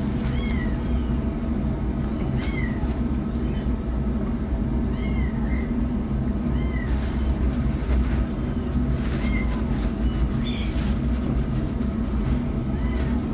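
A kitten mewing repeatedly: short, high calls that rise and fall, coming every second or two, over a steady low hum.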